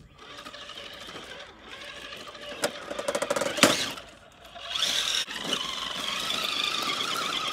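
RC rock crawler's electric motor and geared drivetrain whining as it climbs over rock, with clicks and scrapes from the tyres and chassis. A sharp knock comes about three and a half seconds in, and from about five seconds the whine turns louder and steadier.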